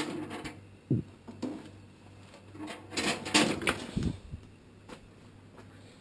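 Small sheet-metal kerosene heater being grabbed by its wire handle and shifted on the floor: metal clanks and knocks, a rattling clatter about three seconds in and a dull thump about four seconds in.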